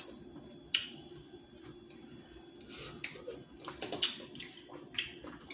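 Quiet eating and handling noises at the table: a handful of soft clicks and wet smacks from hands peeling seafood and from a plastic soda bottle, over a faint steady hum.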